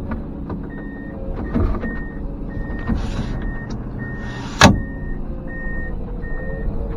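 Komatsu PC210 excavator running, its travel alarm beeping steadily at an even pace of a little over one beep a second. Two short hisses come shortly before a single loud sharp crack about four and a half seconds in.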